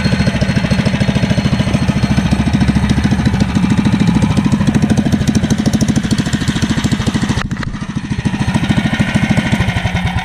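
Freshly rebuilt 440cc single-cylinder four-stroke race engine running on its first test run, with a rapid, even firing beat. About seven and a half seconds in it briefly drops off, then picks up again. It runs cleanly: it sounds good and strong.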